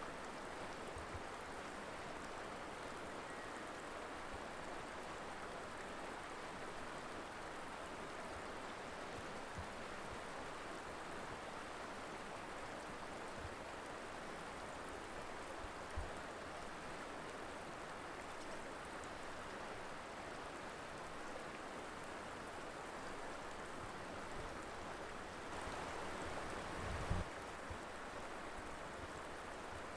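Colorado River flowing steadily, a constant rush of water over rocks. A low thump about halfway through, and near the end a brief swell followed by another low thump.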